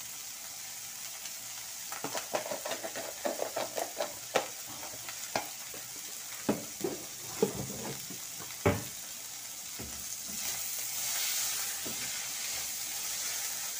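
Salami, onion, tomato and olive filling sizzling steadily in a frying pan, with a run of light clicks and clinks through the first half. About ten seconds in the sizzle grows louder as the mix is stirred with a spoon.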